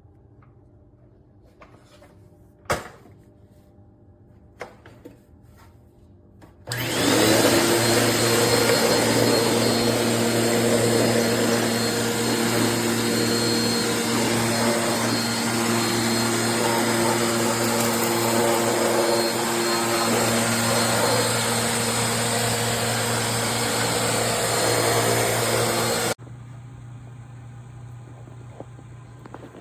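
A few faint clicks, then a Eureka Airspeed bagless upright vacuum cleaner switches on about seven seconds in and runs loud and steady with a constant whine. About twenty seconds later it cuts off suddenly, leaving a quieter low hum.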